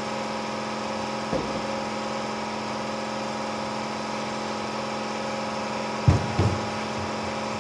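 A steady machine hum runs throughout, with a soft thud about a second and a half in and two louder thumps about six seconds in as a foam armrest block on a wooden panel is set down on the worktable.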